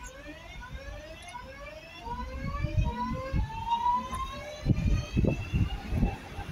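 Class 323 electric multiple unit pulling away, its traction motors giving a stepped, rising whine, several tones climbing together as it gathers speed. Low rumbling thuds build underneath from about two seconds in.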